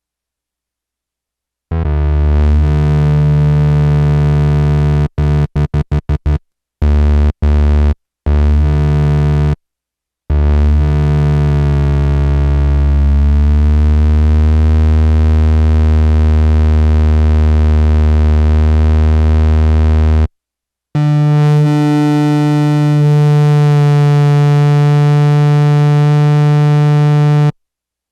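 Yamaha SY-2 vintage analogue synthesizer (about 1971) playing low, buzzy sustained notes rich in overtones: a held note, a quick run of short staccato repeats, two brief notes, a long note of about ten seconds whose upper overtones shift partway through, and a last held note. The instrument is out of tune.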